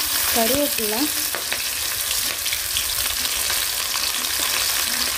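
Garlic, ginger, green chillies and curry leaves sizzling in hot oil in a kadai: a steady frying hiss with a few sharp crackles.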